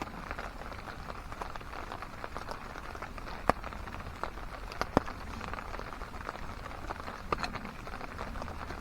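Steady rain falling and pattering, with a few sharp clicks standing out over it, the loudest about three and a half and five seconds in.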